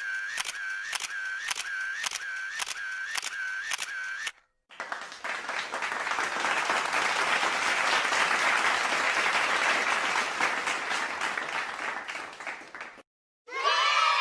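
Two stock sound effects in a row: a sharp click repeated about twice a second for roughly four seconds, then a few seconds of applause that swells and fades.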